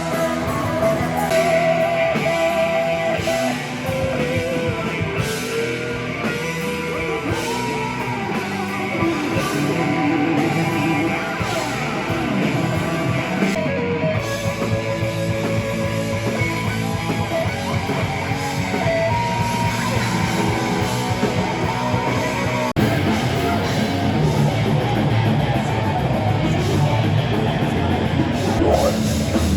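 Rock music led by electric guitar, with an abrupt change in the music about three-quarters of the way through.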